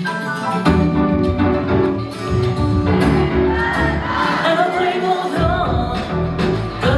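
Pop song playing through a concert PA system with a full band backing and a sung vocal line.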